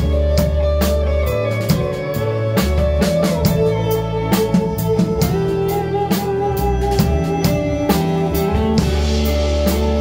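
A live band plays a song. A drum kit keeps a steady beat under a bass line and electric guitar, and a held melody line shifts between notes on top.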